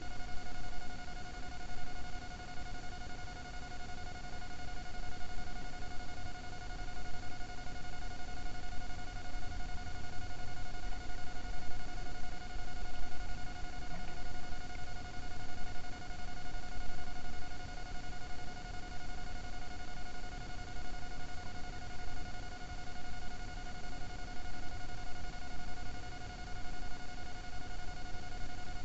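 A steady whine held at one pitch with several overtones, over a low, unsteady rumbling noise.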